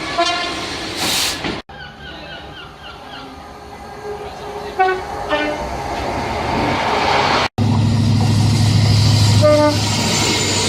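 Passing trains sounding two-tone horns, heard in three short clips that cut off abruptly twice. There are brief horn notes at the start, then two short toots of different pitch over a building train rumble in the middle. Near the end a heavy, steady low engine note runs under another short horn note.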